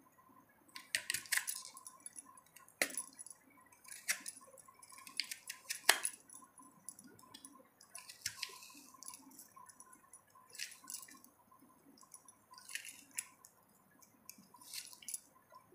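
Handheld plastic vegetable cutter slicing through an onion: a series of sharp crunching cuts, irregular, roughly one every second or two.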